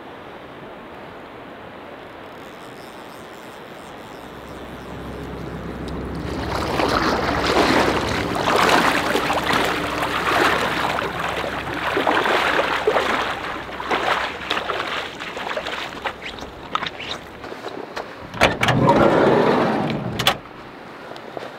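Steady river flow, then water sloshing and splashing around wader-clad legs as a person wades out through shallow water, the steps coming irregularly. Near the end there is a short, louder rush, then a few sharp clicks.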